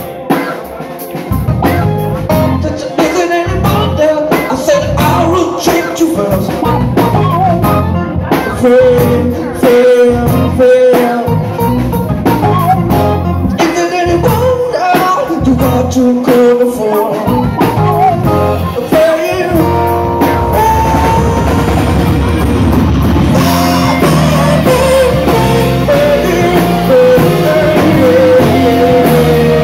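Live rock band playing: electric guitar and drum kit with a singing voice. The drum beat gives way to a denser, steadier passage about twenty seconds in.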